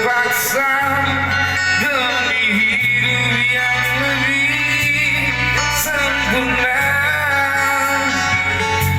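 Band music of a Malay pop ballad, with long held notes sung over a steady bass line.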